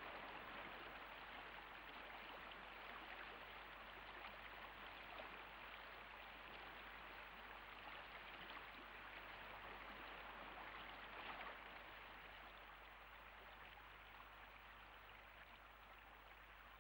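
Faint rushing and churning of water in a boat's wake, a steady wash that slowly fades toward the end.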